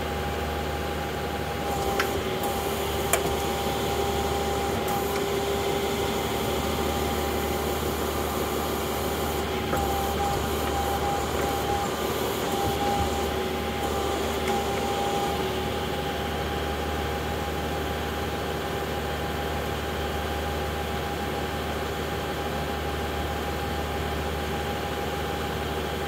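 John Deere compact tractor's diesel engine running under hydraulic load as its 485A backhoe boom and bucket are moved, with a steady whine and a couple of sharp clanks a few seconds in.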